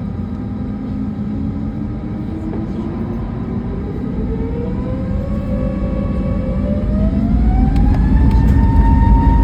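Jet airliner engines spooling up for takeoff: a whine rising steadily in pitch and levelling off about eight seconds in, over a low rumble that grows louder.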